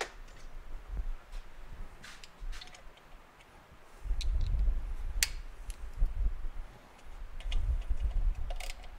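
Hand tools working on a small nut and star washer: light, irregular metal clicks and taps. About four seconds in, heavier low knocks and rumbling from the parts being handled on the bench join them.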